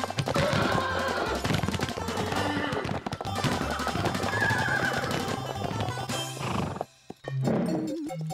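Cartoon soundtrack music with a horse whinnying over it. The music drops out briefly near the end.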